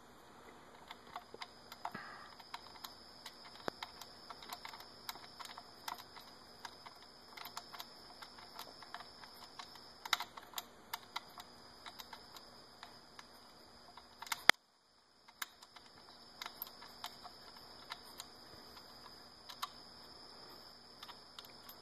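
Kawasaki ZX-6R fork top cap being spun by hand onto its damper rod: light, irregular metallic clicks and ticks from the threads and from fingers on the metal parts, with one sharper click about two-thirds of the way in.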